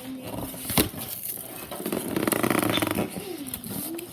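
Toy packaging being handled and pulled open by hand: a sharp click about a second in, then about a second of rasping, rapidly ticking tearing, like tape or cardboard being ripped.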